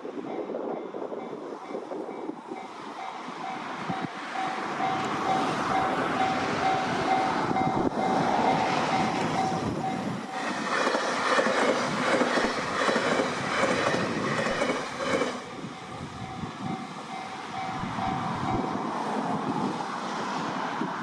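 Japanese railway level-crossing warning bell ringing in a steady repeated ding. An electric train approaches and passes over the crossing for about five seconds, starting about ten seconds in, with wheels clattering on the rails. The bell keeps ringing after the train has gone and stops near the end.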